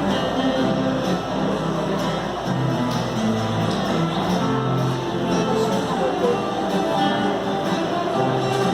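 A band playing a rock song: strummed guitars over a moving bass line.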